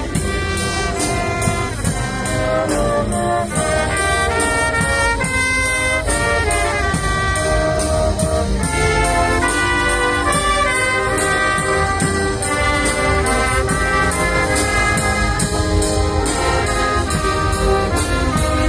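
Brass-led music played with a steady beat of about three strokes a second.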